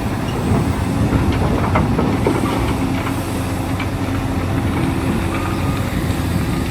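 Steady, loud mechanical rumble with scattered clicks, like a running vehicle or machine.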